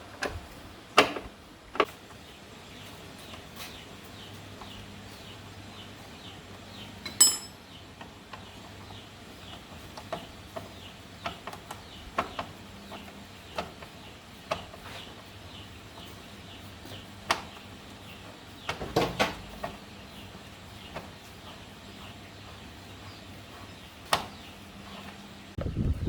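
Scattered metallic clinks and knocks of tools and metal parts being handled during motorcycle repair work, with one clear ringing ping about seven seconds in and a cluster of knocks around nineteen seconds. Faint short high chirps repeat in the background.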